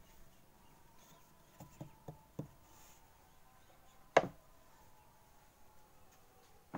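Wood knocking on a wooden work table: four light knocks close together about two seconds in, then one sharp, much louder knock a little past the middle, and another at the end. The pieces are being handled and set down on the bandsaw table.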